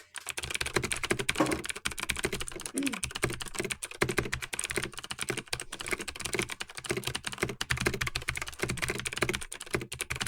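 Computer keyboard typed on rapidly and without pause, a dense stream of many keystrokes a second, as in a speed-typing test.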